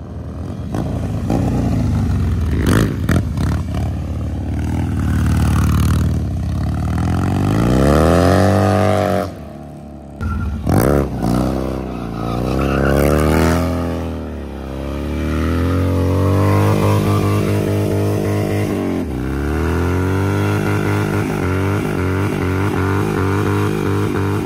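Harley-Davidson V-twin motorcycle engine revving hard through donuts and a rear-tyre burnout. The revs climb, drop sharply about nine seconds in, then rise and fall again several times before holding high near the end.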